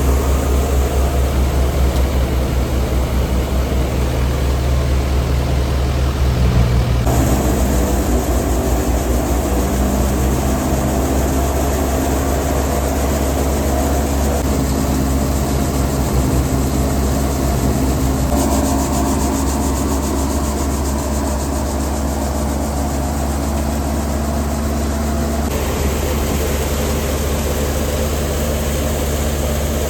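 A wheat thresher (haler) running under load: a loud, steady machine drone of engine and threshing drum, which shifts abruptly in character about 7 seconds in and again later.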